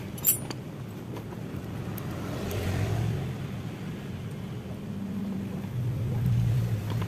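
Low, steady hum of motor-vehicle engines in the background, swelling slightly twice, with a single light click near the start as the carburetor is handled.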